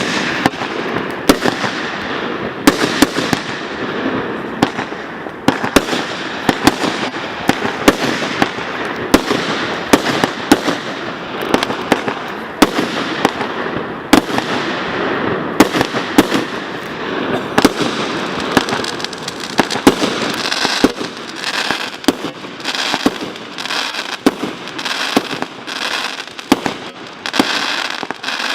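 A 36-shot, 25 mm firework cake firing: shots and bursts about once a second in steady succession. A dense crackling sets in over the last third as the crackling effects go off.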